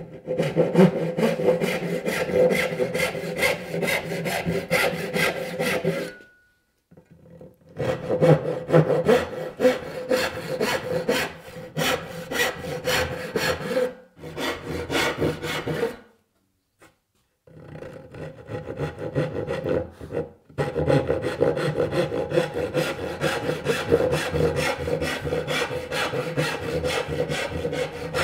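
Brass-backed dovetail saw cutting the pins of a through-dovetail joint by hand, steady back-and-forth strokes in the hardwood board. It runs in about five stretches of sawing with short pauses between cuts.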